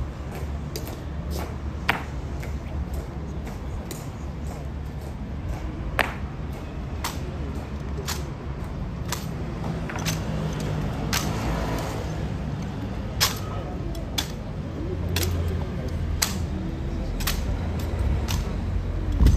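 Sharp clicks against a murmuring crowd, spaced irregularly at first and then falling into about one a second: honor guards' boots striking the pavement in a slow ceremonial march.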